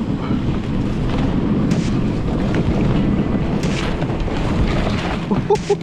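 Dog sled runners sliding and scraping over a packed snow trail, with wind noise on the microphone, a steady noisy sound. Two short squeaks near the end.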